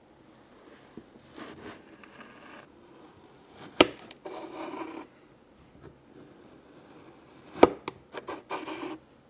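Kinetic sand being scraped and rubbed with plastic toy tools. Two sharp knocks about four seconds apart are the loudest sounds, each followed by a short crumbly scraping.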